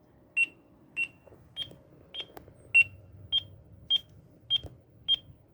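Wireless-internet customer radio (CPE) sounding its alignment tone: short, high beeps a little under two a second, a few of them slightly lower in pitch than the rest. This is the tone telling the installer the radio has linked to the access point.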